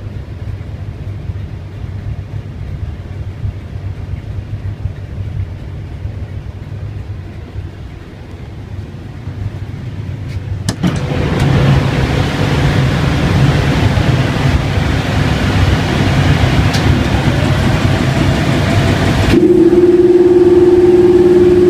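Class 31 locomotive's English Electric 12SVT V12 diesel idling. At first it is a muffled rumble heard from the cab. About eleven seconds in a click comes as the engine-room door opens, and the engine becomes much louder and fuller. Near the end a loud steady hum joins in.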